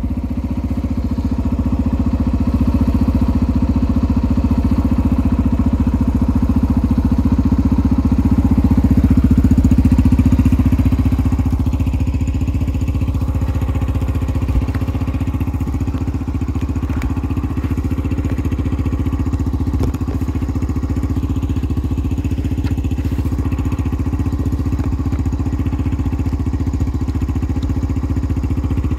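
Yamaha TT-R dirt bike's single-cylinder four-stroke engine idling steadily, running a little louder around ten seconds in before settling back.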